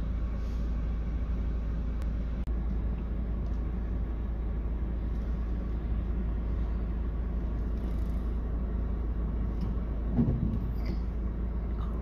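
Strong wind blowing over the microphone, a steady low rumble with a louder gust about ten seconds in.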